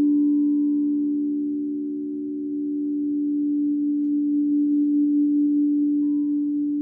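A singing bowl sounding one sustained low hum. It eases off, swells again with a slight waver about halfway through, and fades near the end.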